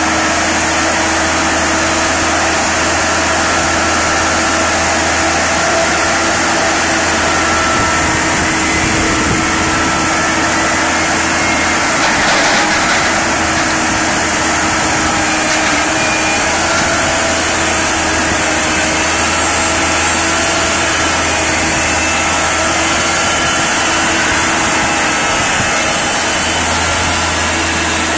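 Manitowoc 14000 crawler crane's diesel engine running steadily at close range, with a steady high whine over it. There is a brief knock about twelve seconds in.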